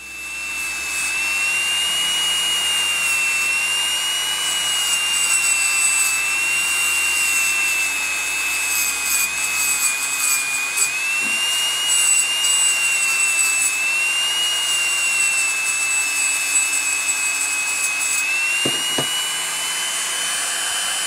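Hand-held rotary tool spinning a small polishing wheel against a bare zinc diecast toy car body: a steady high whine that wavers slightly in pitch, with a couple of light knocks near the end, cutting off abruptly.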